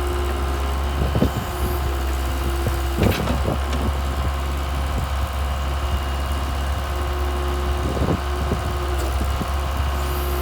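Mitsubishi diesel engine of a Case DH4B trencher running steadily at idle, with a few short knocks.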